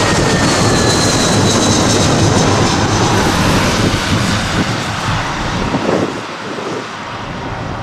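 Twin-engine Airbus A320-family jet airliner on final approach passing low overhead: loud jet engine noise with a high whine that slides down in pitch as it goes by. The noise then fades about six seconds in as the plane moves away toward the runway.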